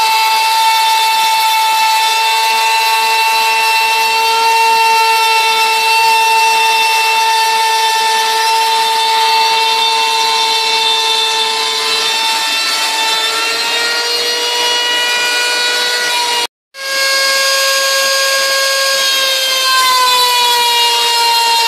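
High-speed router spindle on a CNC router running with a steady high whine while its bit mills a shallow groove into fiberboard. The pitch wavers a little and dips slightly near the end, and the sound breaks off for an instant about three-quarters of the way through.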